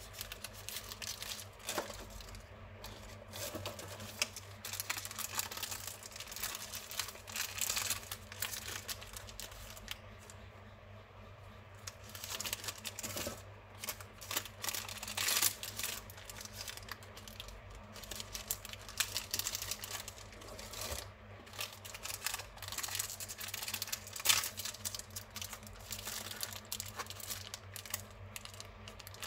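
Packaging of Lemona vitamin C powder sachets crinkling and rustling as the packs are handled and unwrapped, with irregular crackles and occasional tearing.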